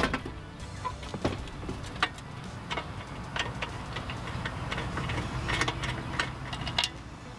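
Irregular small clicks and light rattles of hands working wiring connections and brackets loose from the brake pedal assembly under a truck's dashboard, over a steady low hum.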